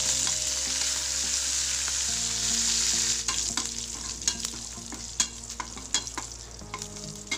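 Oil sizzling in a stainless steel pan as a tempering of mustard seeds, cumin, urad dal, dried red chillies, garlic and curry leaves fries, stirred with a metal spatula. The sizzle is strongest for the first few seconds and then fades, while sharp clicks and taps of the spatula on the pan come more often from about three seconds in.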